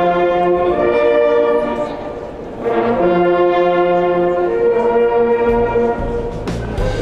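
A hunting-horn ensemble of German Jagdhörner playing a hunting signal in several parts, sustained chords in short phrases with brief breaks between them. A low rumble joins in near the end.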